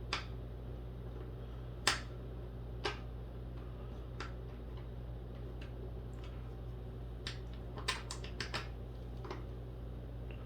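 Scattered sharp clicks and light knocks of desk parts, hardware and tools being handled during flat-pack assembly, irregularly spaced with a quick cluster near the end, over a steady low hum.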